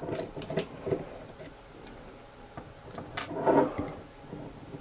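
Precision screwdriver turning small screws out of a plastic gimbal housing, with faint scraping and light clicks of handling. There is a sharp click a little after three seconds in, followed by a short, louder rustle.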